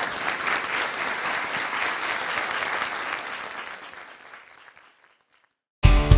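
Audience applauding after a speech, fading out about four to five seconds in. After a brief silence, music starts abruptly near the end.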